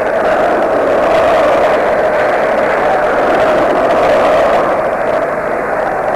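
Stadium crowd noise from a large football crowd: a dense, steady din of many voices with a sustained note running through it.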